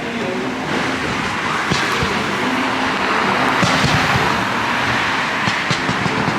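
Steady running noise of a moving vehicle, a hiss that swells about a second in and holds, with a faint low hum underneath.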